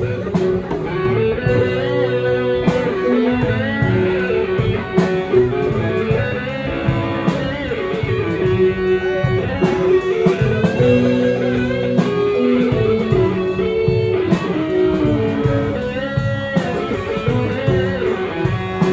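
Live band playing an instrumental passage: an electric guitar lead with notes bent up and down, over bass, keyboard and drums, in a bluesy rock style.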